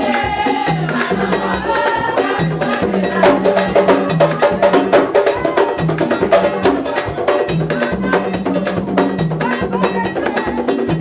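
Haitian Vodou ceremonial music: a chorus of voices singing over a steady, driving rhythm of drums and hand percussion.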